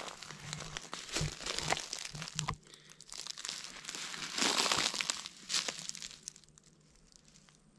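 Footsteps crunching and rustling through dry leaf litter, in irregular bursts that are loudest about halfway through and die down near the end as the walker stops.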